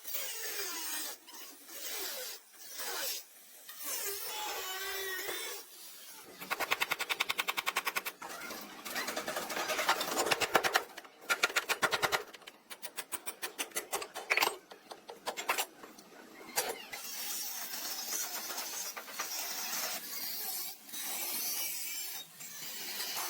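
Tools working on car bodywork: stretches of scraping and rubbing, broken by two bursts of a rapid, even rattle of sharp impacts about six and twelve seconds in.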